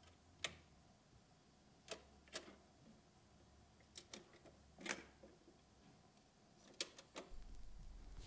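Near silence with a handful of faint, irregular clicks and small knocks. A low hum comes in near the end.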